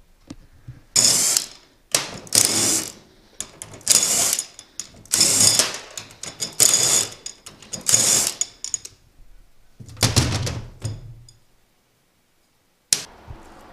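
Hand ratchet wrench on the sprocket carrier's nuts, clicking through about seven strokes roughly a second and a half apart, then stopping; one sharp click follows near the end.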